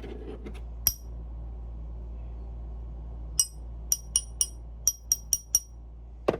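Small metal parts clinking against each other or the bench: one sharp clink about a second in, then a quick run of about eight brief, high clinks.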